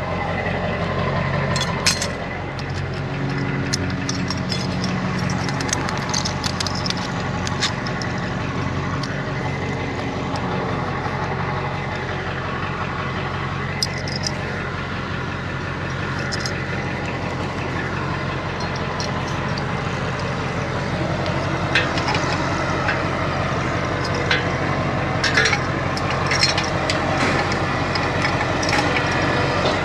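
A tow truck's engine idling steadily, with scattered sharp clicks and clanks over it that come more often in the last third.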